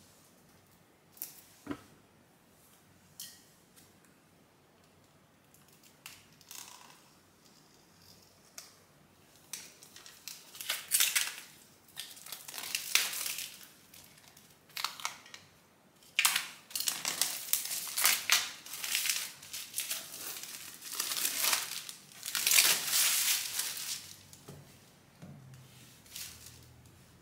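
Plastic shrink-wrap being torn and peeled off a hardcover book slipcase, crinkling in bursts for about fifteen seconds, after a few light clicks at first.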